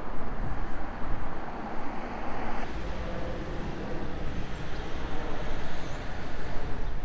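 Outdoor ambience of distant road traffic: a steady noisy rumble that changes character about two and a half seconds in.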